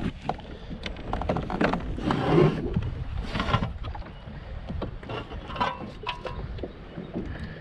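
Scattered knocks and taps against a plastic fishing kayak as a catch is handled, with two short rushes of noise about two and three and a half seconds in.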